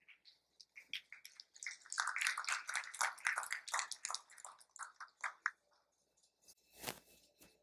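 Scattered audience applause: a few claps at first, filling in about two seconds in, then thinning out and stopping. One knock near the end.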